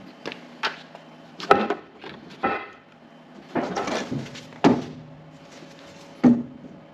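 Irregular knocks and clatters, about eight in all, as of objects being handled, over a faint steady hum.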